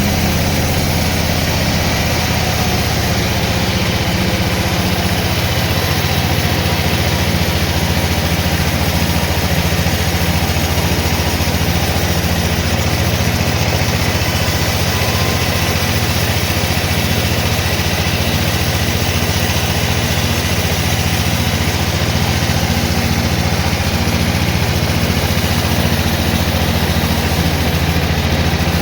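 Sawmill machinery running steadily at an even, unchanging pitch, with a constant low hum and no sign of the blade going into wood.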